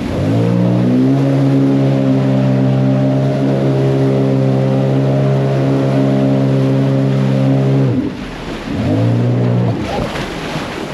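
Vehicle engine revving up and held at a steady high speed for about seven seconds, then dropping off, followed by one shorter rev.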